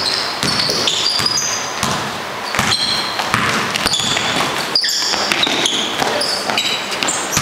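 Basketball being dribbled and bounced on a gym floor, with short high sneaker squeaks from players cutting and stopping, echoing in a large hall.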